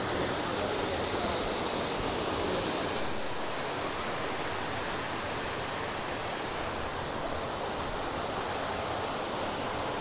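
Steady rushing roar of a waterfall pouring into a rocky creek.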